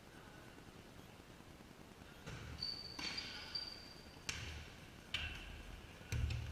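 A futsal ball being kicked and bouncing on a sports hall floor: five or six sharp knocks from about two seconds in, each ringing briefly in the hall. A high held squeak or whistle-like tone sounds in the middle.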